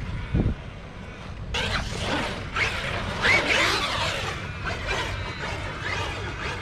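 Electric motor of a radio-controlled monster truck whining up and down in pitch as it is driven hard, with tyre hiss on wet concrete. A dull thump sounds about half a second in.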